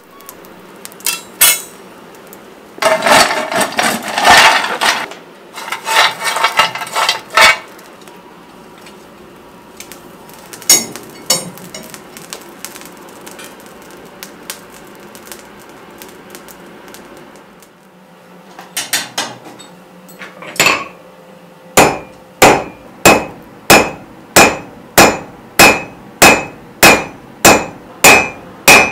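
Blacksmith's hand hammer striking a red-hot 6 mm round steel bar on the anvil in a steady rhythm of about two blows a second, each blow ringing, drawing out the point of a nail; the blows begin about three-quarters of the way through. Before that come irregular metal clinks and clatter of smithy tools.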